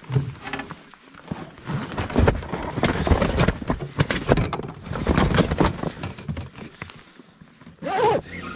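A freshly landed fish thrashing in the landing net and on the boat, making a rapid, irregular run of loud knocks and thumps, heaviest in the middle.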